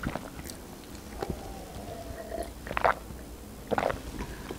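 A person drinking from a glass: a few short, soft swallows and mouth sounds, with pauses between them.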